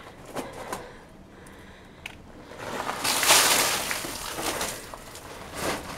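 Rainwater pooled in a sagging awning being tipped off, pouring over the edge in a splashing rush that starts about halfway through, is loudest soon after, and tapers off.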